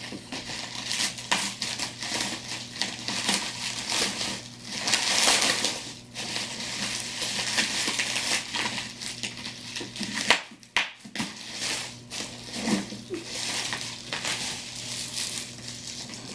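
Clear plastic packaging crinkling and rustling loudly as gifts are handled and unwrapped, in bursts, loudest about five seconds in, with a sharp snap near eleven seconds.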